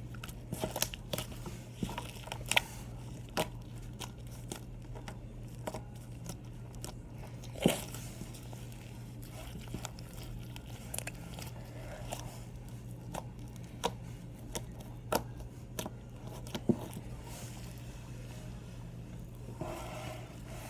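Slime being squeezed and poked by hand, giving irregular crackling clicks and pops, a few of them sharper and louder, over a steady low hum.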